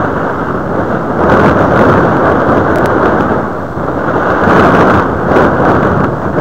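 Wind buffeting an outdoor microphone: a loud, rough rushing rumble that swells about a second in, eases a little past the middle, and gusts up again around five seconds.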